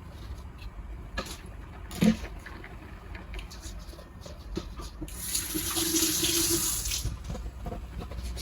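A couple of light knocks, then a kitchen tap running for about two seconds and shut off abruptly.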